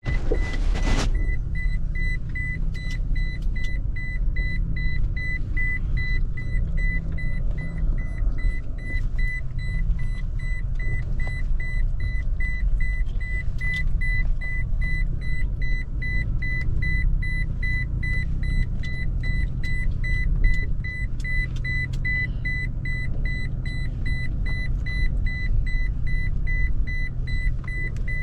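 Inside the cab of a Toyota Tacoma TRD Pro on the move: a steady low engine and road rumble, with a high warning chime beeping rapidly and without a break over it. Light clicks and rattles come at irregular moments.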